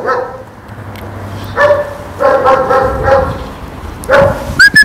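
A German Shepherd whining in high, drawn-out cries: a short one, then one held for about a second, then another near the end. A high, steady whistle starts just before the end.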